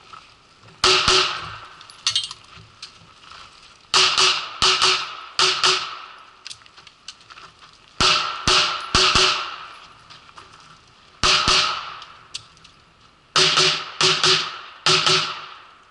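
Handgun shots fired in quick pairs and threes, each crack trailing off in a short echo, in about five strings separated by pauses of a second or two.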